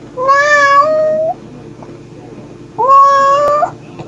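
A mother domestic cat calling for her kittens with two drawn-out meows about two seconds apart, each lasting about a second; the second opens with a quick upward swoop in pitch before levelling off.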